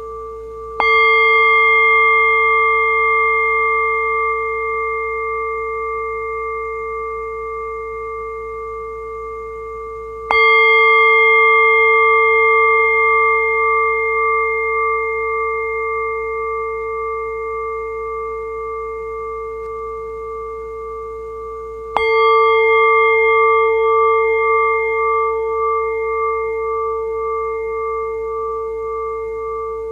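A bell struck three times, roughly every ten seconds. Each strike rings on as a long, slowly fading hum with a slow wavering in its tone.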